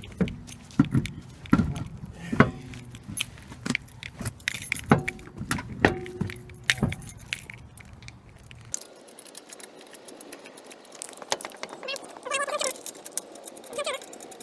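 Irregular metallic clinks and clatter of lug nuts and a wheel-lock key being handled and fitted while the wheel is mounted back on the hub. After about nine seconds the sound changes abruptly to a quieter stretch with a few short squeaky sounds.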